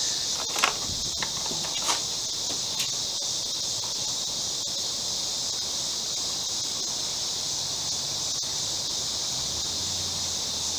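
Steady high-pitched chorus of insects such as crickets, with a few faint clicks in the first three seconds.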